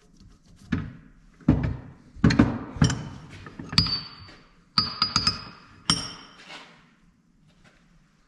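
About ten metal knocks and clinks from a steel bench vise being worked and tools set down on it. Several of them ring briefly and high, and they die away after about seven seconds.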